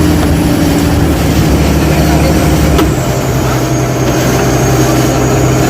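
Motorboat engine running steadily under way, with a steady low hum and rushing noise; the engine note shifts lower about three seconds in.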